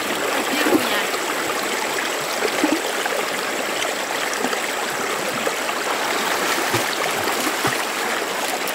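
Shallow stream water running steadily and gurgling as it spills over rocks and through a bamboo-slat fish trap set in the current.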